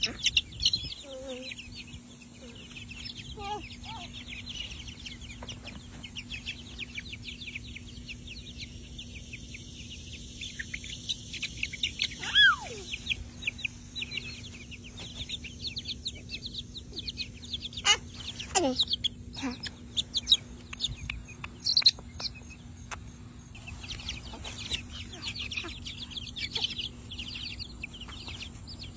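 Young chicks peeping: a continuous stream of rapid, high-pitched peeps, with a few louder calls that slide down in pitch.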